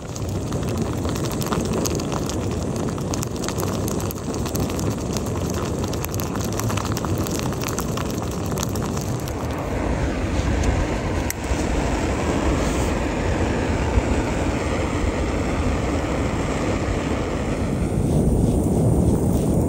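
Food sizzling and crackling in a frying pan on a camping stove, with wind rumbling on the microphone.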